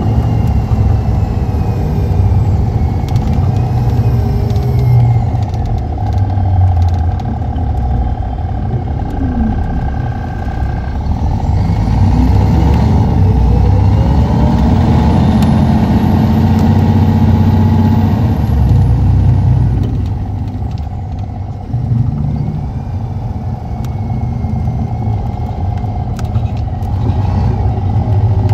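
Cummins ISX 11.9-litre six-cylinder diesel of an MCI D4500CT motor coach running steadily under way, its pitch sweeping down and then up again about a third of the way through. It eases off and goes quieter about two thirds of the way in, then picks up again near the end.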